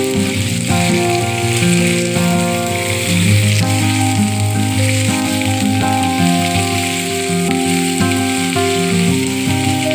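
Paneer cubes sizzling steadily as they fry in oil in a metal kadhai, over background music of steady notes that change every half second or so.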